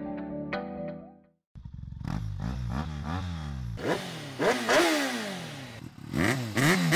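A short held musical chord fades out in the first second or so, then a motorcycle engine is revved over and over, its pitch rising and falling with each throttle blip, the revs louder near the end.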